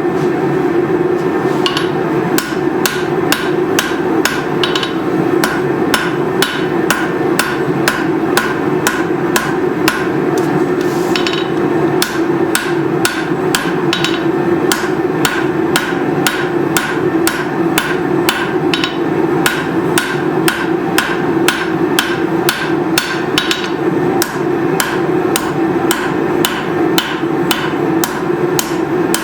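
Hand hammer striking hot leaf-spring steel on an anvil in a steady run of blows, about two to three a second, drawing out a knife's tang. A steady low drone runs underneath.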